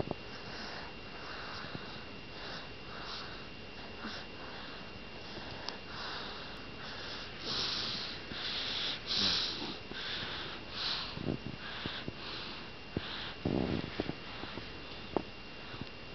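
A baby breathing and sniffing noisily through the nose in short, quick puffs, a little more than one a second, with a few sharp wet mouth clicks.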